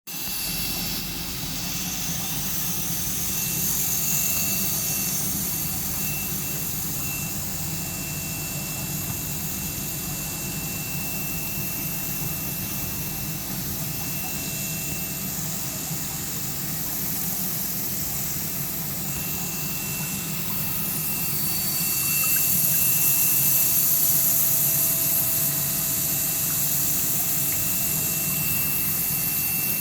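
CNC stone flat-polishing machine running steadily: a low motor hum under a high hiss, with a faint steady whine. The hiss swells briefly about four seconds in and again from about two-thirds of the way through.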